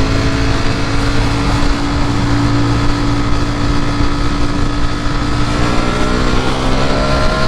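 Ducati Panigale V4 S's 1103 cc V4 engine running under way, its pitch climbing slowly as the bike gains speed and a little faster near the end.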